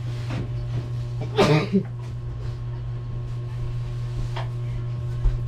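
A person coughs, a short double cough about a second and a half in, over a steady low hum. A faint click and two soft knocks follow near the end.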